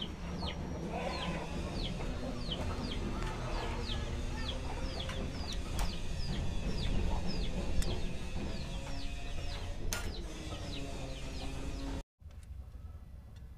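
Tin snips cutting a thin brass sheet, with a few sharp clicks, while chicks peep over and over in short falling notes and hens cluck in the background. It cuts off suddenly about twelve seconds in, and a quieter stretch follows.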